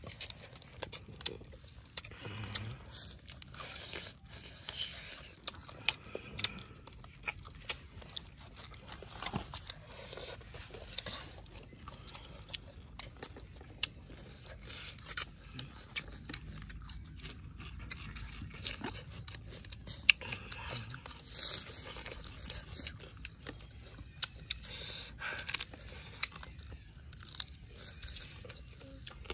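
Close-up chewing and crunching of crispy fried chicken feet, with many short, irregular crunches as the pieces are bitten.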